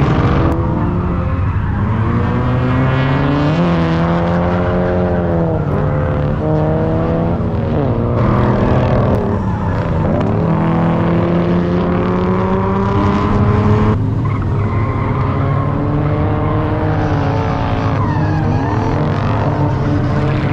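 Drift car engines revving up and down over and over, their pitch rising and falling in waves, with tires skidding and squealing on the asphalt.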